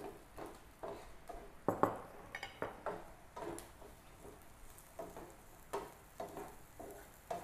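Wooden spatula scraping and tapping in a nonstick frying pan, about two strokes a second, stir-frying diced Chinese sausage, dried shrimp and onion in oil.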